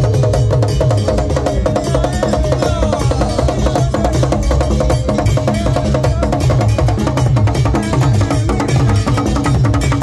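Ghanaian traditional drum ensemble playing a steady, busy rhythm: large barrel drums struck with curved sticks and a hand-played drum, with a repeated woody click over them.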